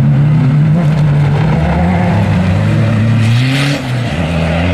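Off-road racing buggy's engine running hard through mud, its pitch rising and falling. A short hiss comes about three seconds in, and the engine sound changes abruptly near the end.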